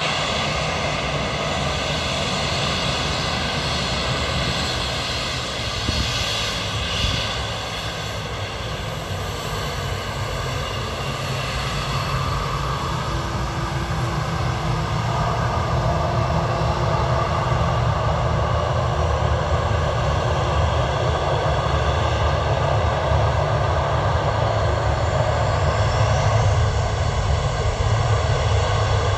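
Jet airliner's engines running as the aircraft rolls along the ground: a steady rumble and roar that grows louder over the second half.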